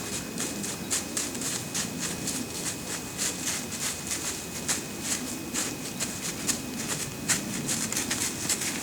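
Deer hooves crunching through dry leaves, several irregular steps a second.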